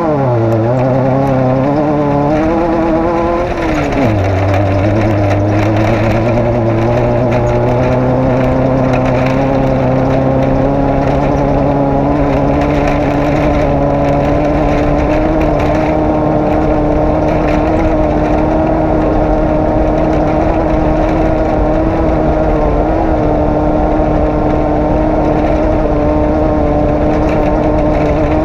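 Off-road race vehicle's engine running under load. The revs rise and fall for the first few seconds, drop sharply about four seconds in, then hold steady with a slow climb.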